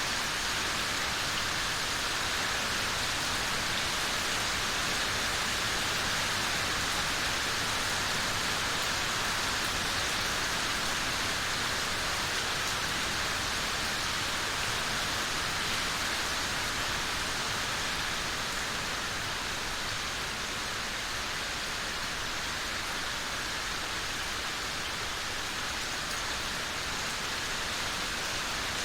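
Rain falling steadily, an even hiss of drops and drips, easing slightly about two-thirds of the way in.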